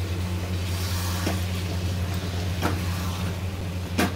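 Wooden spatula stirring thick potato-and-eggplant masala in a kadhai, with three knocks of the spatula against the pan about a second and a half apart, the last the loudest, over a steady low hum.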